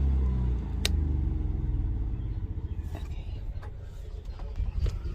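Onan Microlite 4000 RV generator being shut off: its steady running hum breaks up about half a second in and winds down in slowing, fading pulses as the engine coasts to a stop. A single click sounds about a second in.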